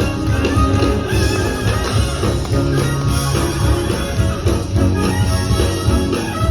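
Music with a heavy, steady bass beat and several instruments playing.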